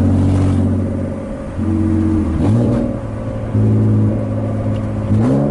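BMW E36 325is straight-six engine under way through downshifts. The revs fall away, then a quick throttle blip raises the pitch to rev-match into the lower gear, about two and a half seconds in and again near the end.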